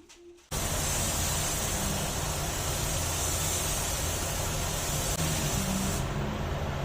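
Loud steady hiss of compressed air from a pneumatic tool, such as a paint spray gun or air blow gun, starting suddenly about half a second in, with a low rumble beneath; the highest part of the hiss drops away near the end.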